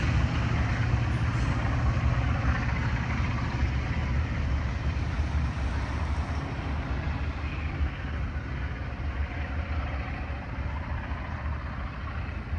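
Freight train rolling away down the track: a steady low rumble and clatter of freight-car wheels on the rails that slowly fades.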